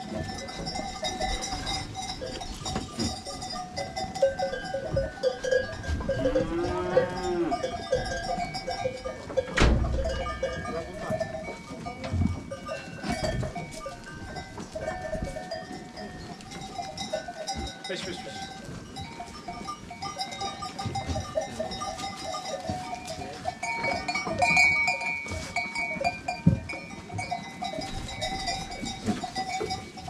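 Bells on a flock of grazing goats clinking and jangling throughout. One drawn-out animal call rises and falls about six seconds in, and there is a single sharp knock near ten seconds.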